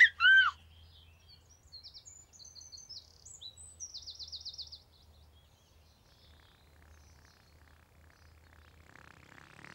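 A baby giggles briefly at the very start, then birds chirp high and light for a few seconds, ending in a quick trill of repeated notes.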